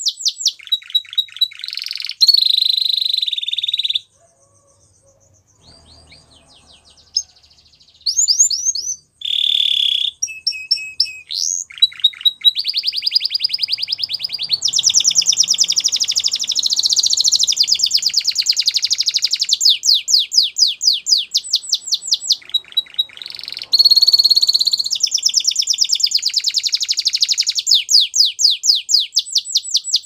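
Spanish Timbrado canary singing: a song of fast trills and rolls of rapidly repeated notes. It breaks off for about two seconds some four seconds in, then resumes in short phrases before long unbroken trills.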